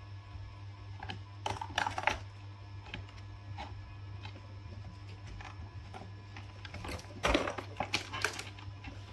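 Two baby macaques scuffling on a plastic toy dump truck: short bursts of clattering knocks and rattles, the loudest cluster about seven seconds in as they grapple.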